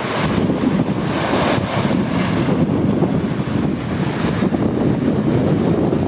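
Surf washing in over shoreline boulders in repeated surges, with wind buffeting the microphone.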